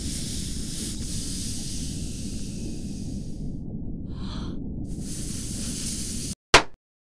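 Rush of wind over a steady low rumble. The hiss drops out briefly about four seconds in and returns, then everything cuts off abruptly and a single loud sharp hit follows.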